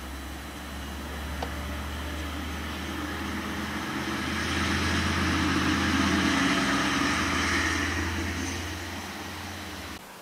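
Diesel locomotive going past, its engine and wheel noise growing louder to a peak about halfway through and then fading, over a steady low hum. Both stop abruptly near the end.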